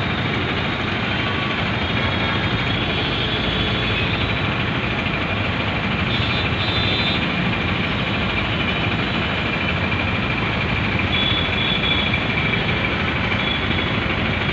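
Steady noise of busy road traffic, the engines and tyres of passing vehicles including a bus.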